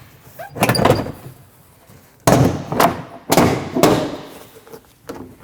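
Plastic interior trim panel on an SUV liftgate being pulled free, its retaining clips letting go with several sudden knocks and clatters of plastic; the sharpest comes a little over two seconds in.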